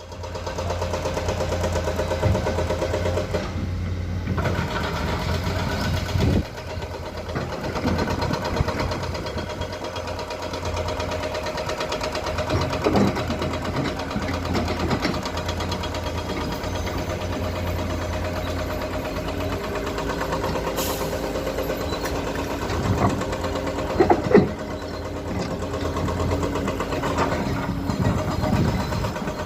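Komatsu PC210 excavator's diesel engine running steadily under working load, with a few scattered clanks and knocks of the bucket and rock.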